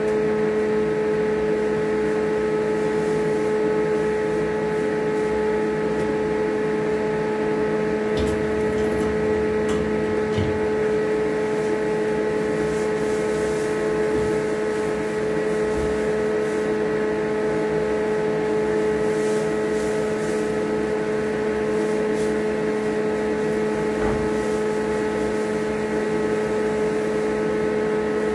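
A steady, unchanging machine hum with a strong, constant pitch, like a motor running. A few faint rustles and knocks come over it as straw is tossed from a cart into the pens.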